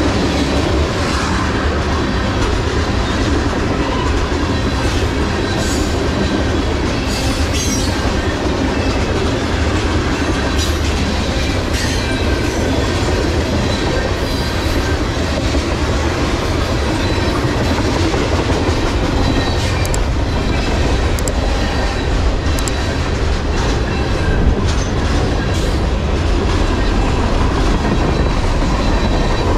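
Freight train of tank cars and boxcars rolling past at close range: steady rumble of wheels on rail, with clickety-clack over the rail joints and a faint wheel squeal.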